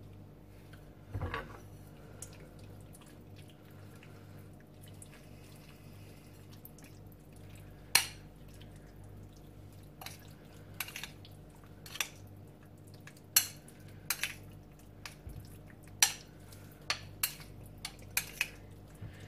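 A metal spoon clinking now and then against a ceramic bowl while raw chicken strips are mixed into a yogurt and spice marinade, with sharp clicks at irregular intervals. A low steady hum runs underneath.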